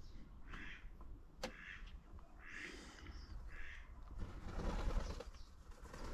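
Ducks quacking in a steady series, about one call a second, then rustling noise takes over about four seconds in.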